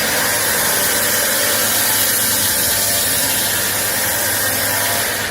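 A steady, loud hiss of workshop machinery, even and unbroken.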